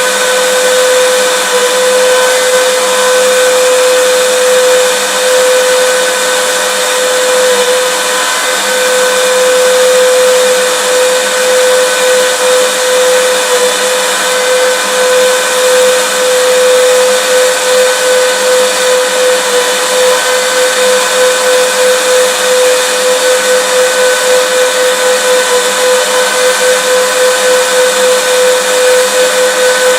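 Vacuum cleaner motor running steadily: a constant rush of air with a high motor whine, played as continuous white noise.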